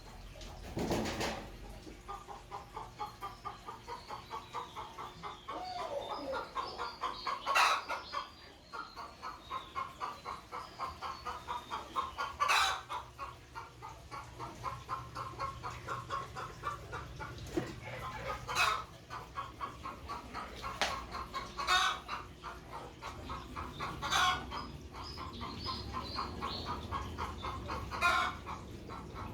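Domestic fowl clucking in a steady rapid rhythm, about four to five clucks a second, with a sharp knock every few seconds.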